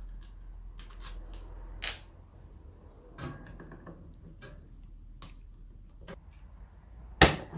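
Scattered clicks and taps of a screwdriver working the screws that hold a fan's motor assembly to its back casing, with one loud knock near the end as a part comes loose or is set down.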